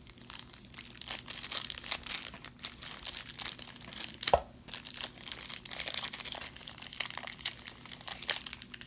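Paper wrapper of an NBA Hoops basketball card pack crinkling and tearing as it is pulled open by hand. It makes an irregular stream of crackles, with one sharper snap about halfway through.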